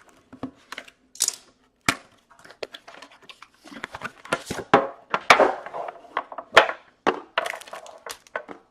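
Cardboard and plastic packaging of a hockey card box being torn and crinkled open by hand: a busy run of rips, crackles and rustles, broken by a few sharp snaps.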